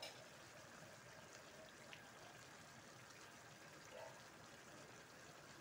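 Near silence: coconut-milk stew of squash, shrimp and vegetables simmering faintly in a stainless steel pan, with a small click about two seconds in.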